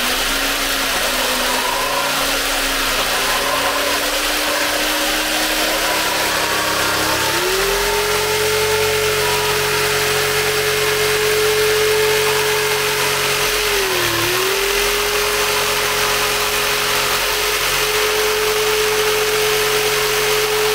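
Corded jigsaw running and cutting through a luxury vinyl floor plank: a steady saw buzz over a motor whine that steps up in pitch about a third of the way through and dips briefly about two-thirds in.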